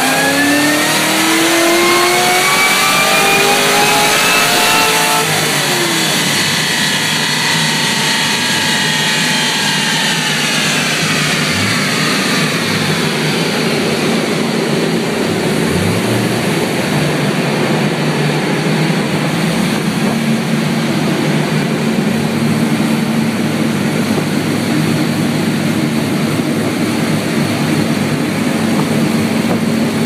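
2013 Camaro ZL1's supercharged 6.2-litre LSA V8, with a road-race rough-idle cam, headers and Magnaflow exhaust, at the top of a wide-open chassis-dyno pull: pitch climbs for about five seconds, then falls away as the engine comes off the throttle and coasts down. From about fourteen seconds in it settles to a steady idle.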